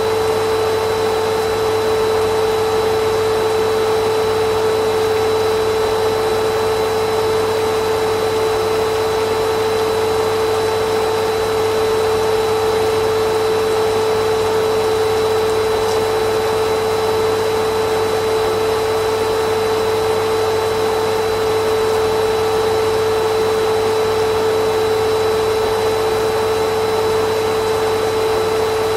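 Vacuum cleaner running steadily, a constant motor hum with a strong single pitch over the rush of air, unchanging throughout.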